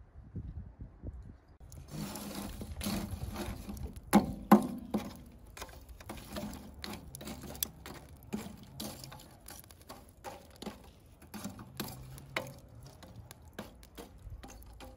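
Lumps of burning charcoal clinking and scraping as they are raked around a steel mangal grill with metal tongs. It starts about two seconds in as a rapid, uneven run of clicks and knocks, loudest a little after four seconds.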